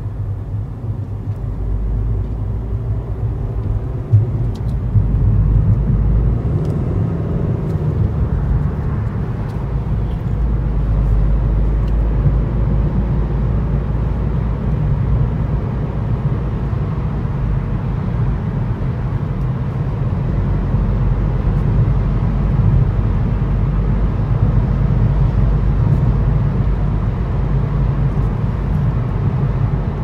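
A car being driven, with a steady low rumble of engine and road noise. There is a short knock about four seconds in.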